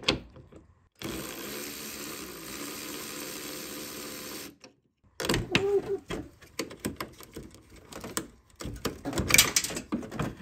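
A small power tool's motor whirs steadily for about three and a half seconds as it spins out a 10 mm headlight-mounting bolt, then stops abruptly. After a brief pause come scattered clicks and knocks of the tool and metal parts being handled.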